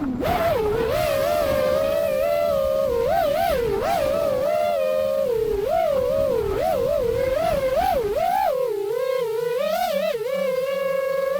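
Small FPV quadcopter's electric motors and propellers whining, the pitch wavering up and down with the throttle. A rushing noise underneath drops away about eight and a half seconds in.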